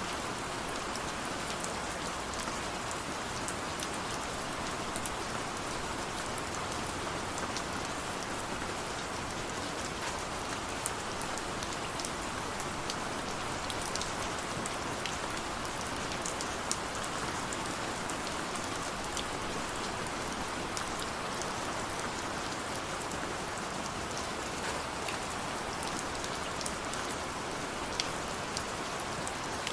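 Steady rain falling, an even hiss with many distinct drops pattering sharply on a surface.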